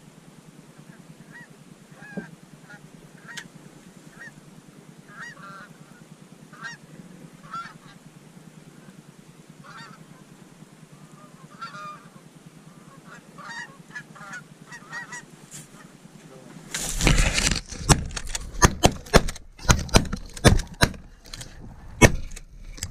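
Geese honking, short calls repeating every second or so. About seventeen seconds in comes a sudden burst of noise, then a rapid volley of many shotgun shots from several hunters over about five seconds.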